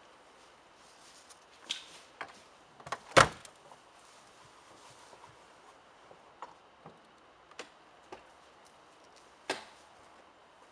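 Car door shut with one hard knock about three seconds in, followed by scattered clicks and knocks of people settling into the car and a passenger door being handled.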